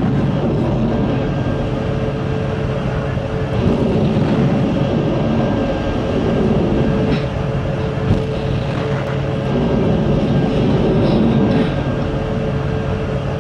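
Rocket boosters of Kalibr cruise missiles firing as the missiles launch from beneath the sea one after another: a loud, continuous rushing rumble that swells twice, over a steady low hum.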